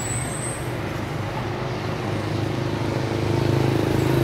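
A motor vehicle's engine running with a steady low hum, growing louder about three seconds in.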